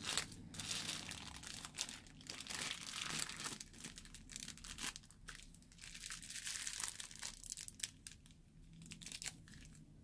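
Crinkling and rustling of a plastic piping bag squeezed by hand as fluffy slime is pressed out of its tip, mixed with the slime's soft crackling squish. The sound comes in irregular bursts and grows sparser over the last few seconds.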